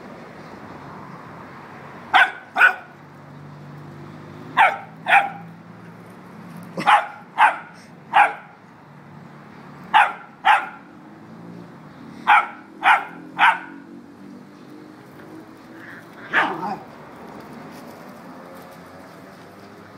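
A puppy barking in short, sharp, high barks, in quick pairs and triplets every couple of seconds, with one last single bark about three-quarters of the way through.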